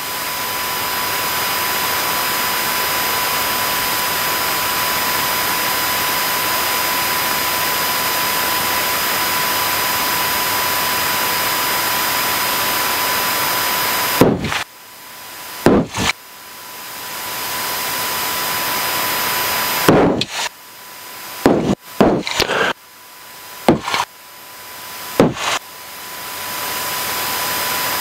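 Steady rushing cabin noise of a light aircraft's engine and propeller as it rolls along a rough dirt airstrip, with a thin steady whine. In the second half about eight sharp knocks and jolts break in, each followed by a sudden dip in level that climbs back over a second or two.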